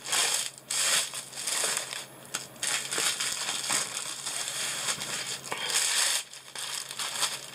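Plastic wrapping on a large rolled diamond-painting canvas crinkling and rustling in uneven bursts as the roll is pulled out of its box and laid down, loudest just after the start and again near the end.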